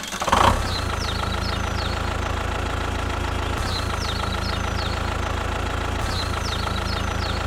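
Tractor engine idling steadily with a knocking rhythm, after a short louder burst as it starts up.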